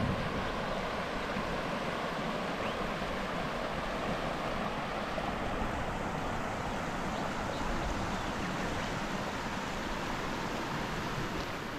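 River water rushing steadily over rocks, an even wash of noise.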